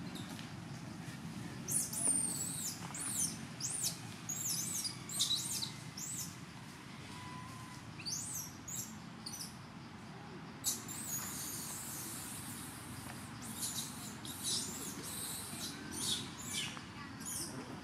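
Birds chirping: bursts of quick, high-pitched chirps and whistles that sweep up and down in pitch, over a low steady background rumble.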